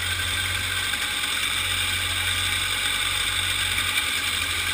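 Small two-stroke kid kart engines idling steadily.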